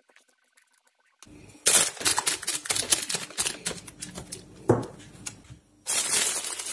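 Starting about a second in, a metal spoon scrapes and taps thick choux pastry dough out of a plastic bowl into a plastic bag, with rapid clicks and crinkling rustles of the bag, loudest near the end.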